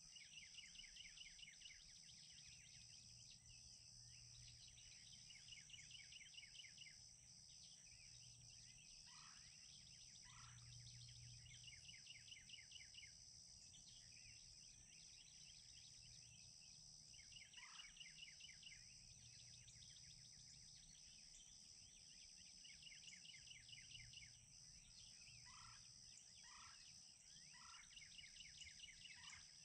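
Distant wild turkeys gobbling: faint rattling calls about a second long, repeated every few seconds. A steady high insect drone runs underneath.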